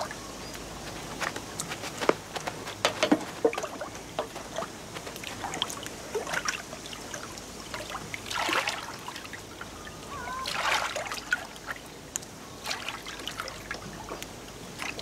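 Oars of a small wooden rowboat dipping and pulling through calm water: irregular splashes with water trickling off the blades, the largest splashes about halfway through.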